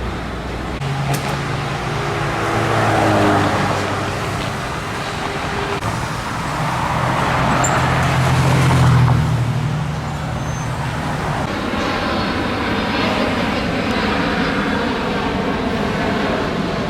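Road traffic: motor vehicles passing by, one swelling past about three seconds in and a louder one about nine seconds in, over steady traffic noise.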